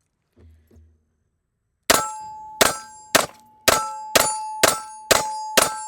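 Eight shots from a Taurus 1911 Officer 9mm pistol fired in quick succession, about two a second, emptying its 7+1 load. A metallic ringing tone sounds with the shots and hangs on after the last one.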